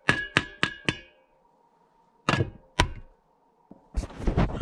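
A spoon clinking against a mug or cup: four quick ringing taps, then two more a little over a second later. Handling noise starts near the end.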